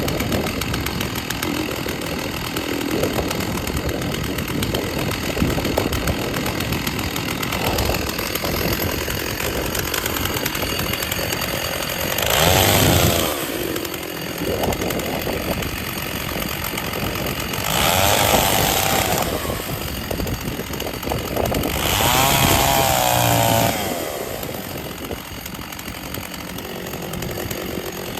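Stihl two-stroke chainsaw running steadily while warming up, its throttle blipped up three times, briefly, about halfway in, two-thirds in and near the end.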